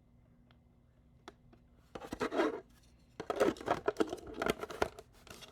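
Plastic top of a small portable air-conditioner fan being fitted back on by hand: a few faint clicks, then scraping and rubbing of plastic on plastic with sharp clicks, mostly in the second half.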